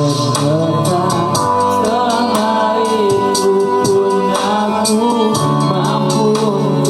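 Music with a male singing voice over instrumental accompaniment and a regular percussion beat.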